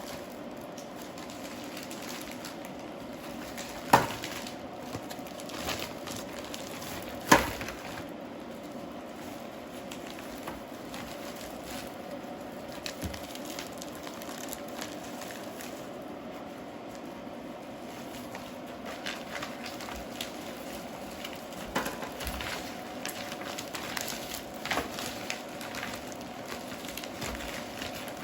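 Plastic bag crinkling and rustling as a large brisket is handled into a vacuum-sealer bag, with two sharp knocks about four seconds in and again about three seconds later, over a steady low hum.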